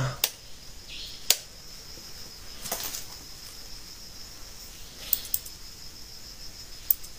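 Crickets trilling steadily and high in the background, with a handful of sharp clicks. The first click comes just as an old wall switch by a door is pressed.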